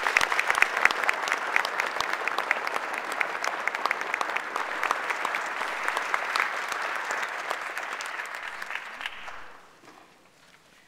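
Audience applauding, a dense run of many hand claps that dies away about nine and a half seconds in.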